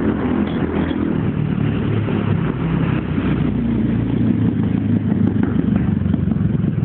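Road traffic: car engines running and tyres on the road as vehicles pass on a multi-lane street, with the engine pitch rising and falling as they go by.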